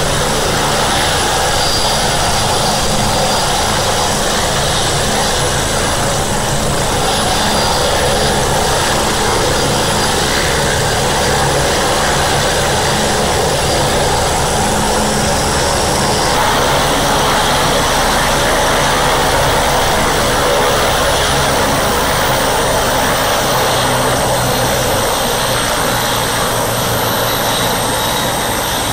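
MBB-Bö 105 helicopter running on the ground, its twin Allison 250-C20B turboshaft engines and four-blade main rotor turning steadily, with a high turbine whine that dips slightly about two-thirds of the way through.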